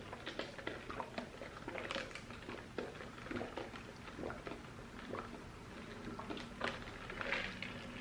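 Close-up mouth sounds of eating and drinking: faint, irregular soft wet clicks of chewing, sipping and swallowing.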